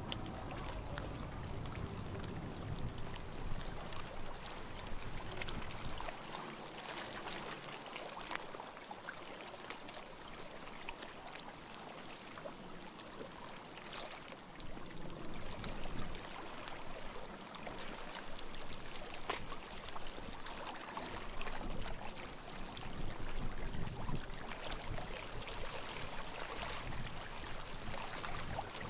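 Small sea waves washing and lapping at the shore, a steady wash of water that swells and eases now and then.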